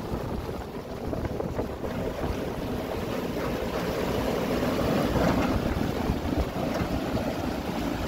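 JCB backhoe loader's diesel engine running, mixed with rushing river water and wind buffeting the microphone, as a steady noisy rumble.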